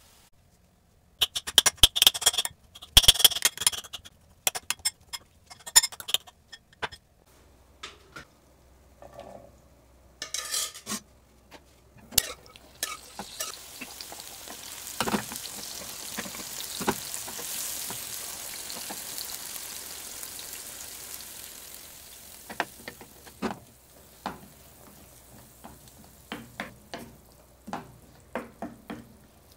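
Clicks and scrapes of a potato being peeled and mashed by hand in a glass bowl, then chickpeas and water going into hot oil in a frying pan with a sizzle that swells and fades. Near the end, a wooden spatula taps and scrapes the pan as the chickpeas are stirred.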